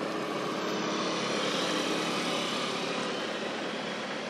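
A steady, engine-like rushing drone that swells a little about two seconds in and then eases off.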